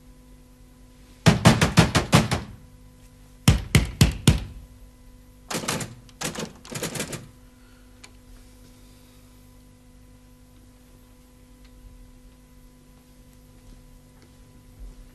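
Jukebox being worked by hand at its front panel: three bursts of rapid, sharp clacks at about six a second, each lasting around a second, starting about a second in and ending about seven seconds in. A faint steady hum lies under them.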